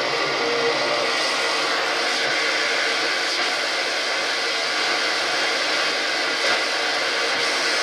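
Steady static hiss from a Sony CF-9000 radio cassette recorder's speaker, the radio tuned between stations.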